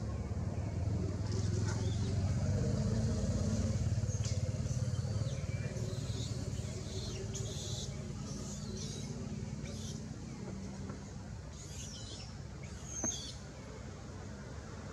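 A motor vehicle engine running nearby, its low hum drifting slightly up and down in pitch. Short high chirping calls come over it on and off, and a single knock falls near the end.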